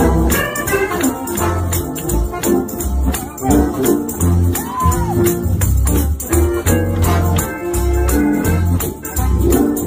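Gospel-style background music with organ, deep bass notes and a steady rattling tambourine-like beat.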